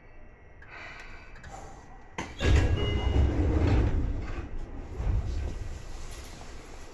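Seibu 2000 series commuter car's sliding doors closing with a sudden heavy thud about two seconds in, followed by a low rumble that fades over the next few seconds.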